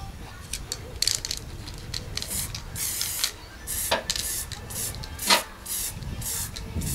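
Aerosol spray can being sprayed in a series of short hissing bursts, each well under a second long. Two sharp clicks come about four and five seconds in.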